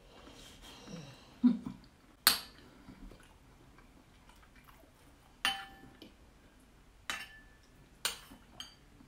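A metal spoon clinking against a ceramic bowl about five times as food is scooped, each strike ringing briefly. There is a short low hum-like sound about a second and a half in.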